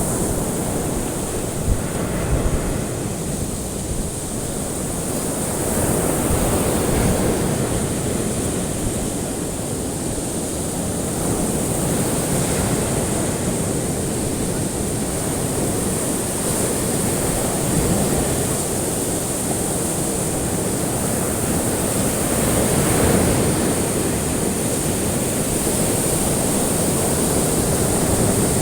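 Ocean waves breaking and washing continuously, swelling and easing every five or six seconds.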